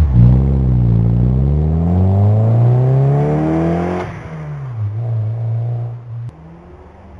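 Mazda Miata inline-four revving through a new exhaust system: the pitch climbs steadily for about three and a half seconds, drops off sharply, gets a shorter blip, then settles to a quieter low idle near the end.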